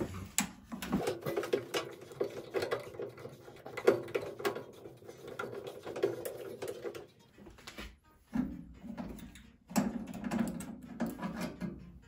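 Screw being worked out of a microwave's high-voltage capacitor mount: irregular clicks and metal rattles, with a low whir in several stretches.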